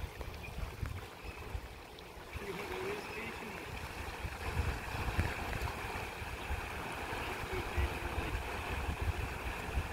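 Turbulent tailwater rushing and churning below a dam, with low, uneven wind rumble on the microphone; a steadier hiss of the water comes in about two seconds in.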